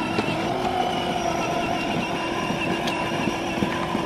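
Battery-powered Audi TT ride-on toy car driving along: its electric motor drive gives a steady whine with a slight wobble, over the crunch of its plastic wheels rolling on a gritty path.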